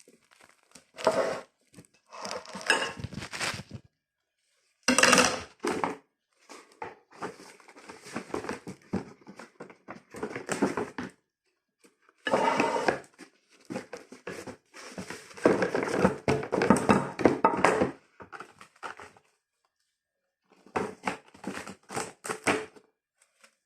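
Food packaging crinkling and rustling in irregular bursts as it is handled and folded, with a few short gaps.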